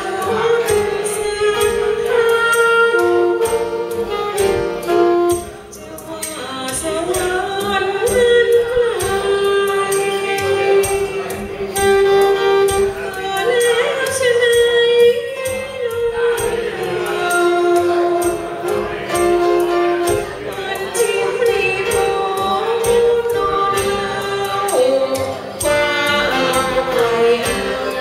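A woman singing a Thai ballad live through a microphone and PA, with piano accompaniment and long held notes.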